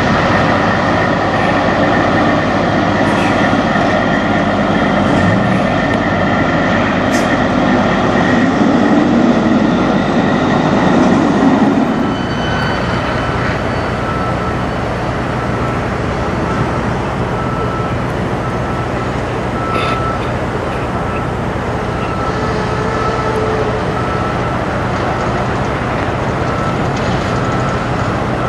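Semi tractor-trailers' diesel engines and tyres as the trucks drive by, louder and swelling over the first twelve seconds. It then changes suddenly to a steadier, quieter hum of a truck and traffic.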